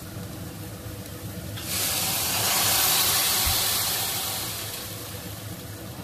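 Water poured into a hot stainless-steel wok of frying onions and vegetables, hissing sharply as it hits the hot pan. The hiss starts suddenly about two seconds in, peaks about a second later and dies away over the next two seconds.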